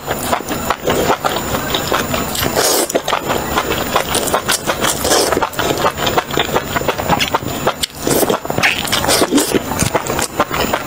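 Close-up wet chewing and slurping of enoki mushrooms in chili oil: a dense, fast run of mouth clicks and smacks as bunches of strands are sucked in and chewed.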